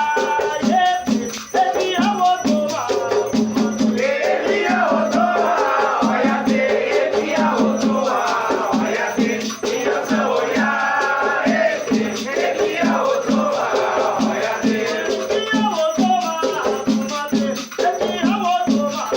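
Afro-Brazilian batuque ritual music: chanted singing over a fast, steady shaken-rattle rhythm.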